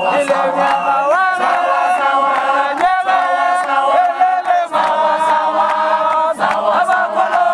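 A crowd singing and chanting together in many voices, in long held notes, with hand claps.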